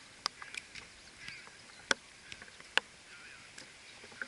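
A football being kicked on an artificial-turf pitch: a few sharp thuds, the two loudest about two and three seconds in, with fainter knocks between them.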